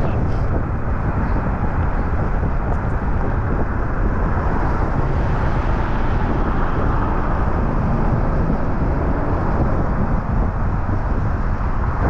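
Steady rumble and road noise of a vehicle driving at speed on the highway.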